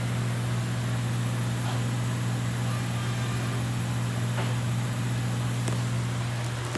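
Hypertherm Powermax45 XP plasma cutter powered on and idling: a steady low electrical hum with a faint high hiss. The hum weakens slightly near the end.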